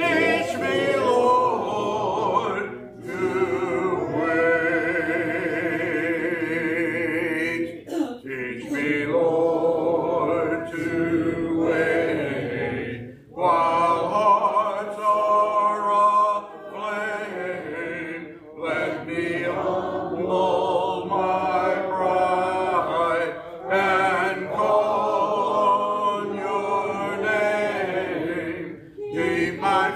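Congregation singing a slow hymn a cappella, led by a male song leader: long held notes in phrases with short pauses between lines.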